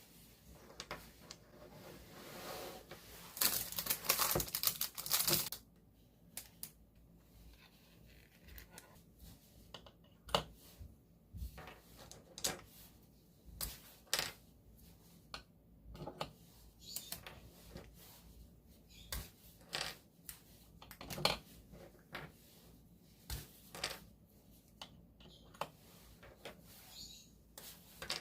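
Packaging rustling and tearing for a couple of seconds, then scattered light clicks and taps of small items being handled and set down.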